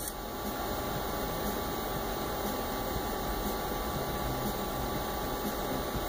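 Steady hum and hiss of running computer equipment, with a faint tick about once a second. The rotary dial is not being turned.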